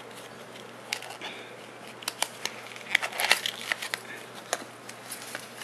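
Paper and plastic wrapping crinkling and rustling as the paper insert is pulled out of a new leather key case, with irregular small crackles that are thickest about three seconds in.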